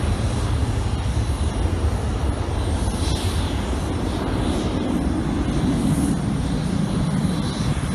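Jet airliner engines at takeoff power, heard as a steady low rumble, with a faint high whine above it.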